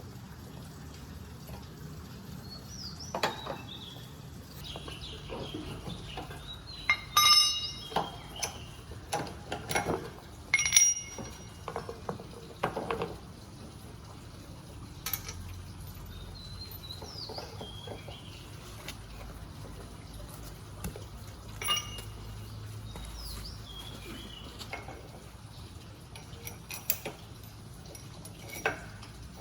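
Intermittent metallic clinks and knocks of tools and metal parts being handled during motorcycle wheel removal. The loudest are a few ringing clinks around seven and eleven seconds in. Birds chirp faintly now and then.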